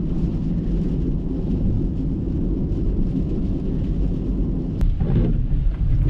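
Strong wind buffeting the microphone in a rainstorm: a loud, steady low rumble, with a single sharp click near the end.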